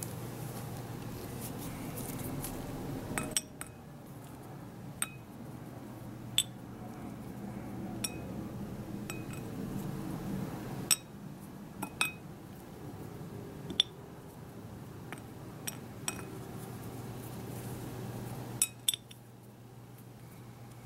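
Light clicks and clinks on a ceramic plate, about a dozen at irregular intervals, as small pieces of dried fruit are set down one by one among the decorations.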